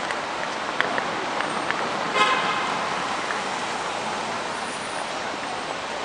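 Steady hum of city street traffic, with one short car-horn toot about two seconds in and a few small clicks.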